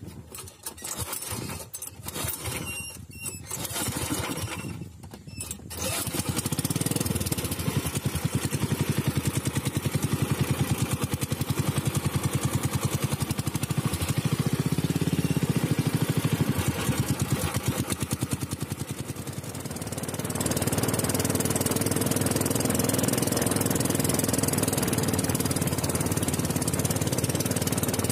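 Small boat engine running steadily, with a rapid even firing pulse. It comes in strongly about six seconds in, after a stretch of uneven quieter sound. Its note changes about twenty seconds in.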